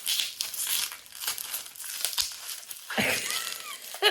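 Packing material being crinkled and torn as a tightly wrapped item is wrestled open: irregular crackling and ripping.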